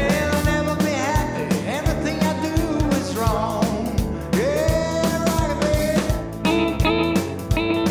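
Rock music with a steady drum beat and sliding, bending melody lines.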